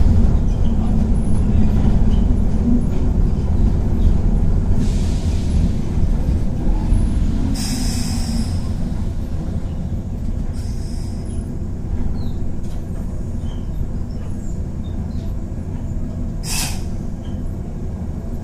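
JR 103 series (3550 subseries) electric train standing at a platform, its onboard equipment giving a steady low hum. Short hisses of air come about five and eight seconds in, again around eleven seconds, and a sharper hiss near the end.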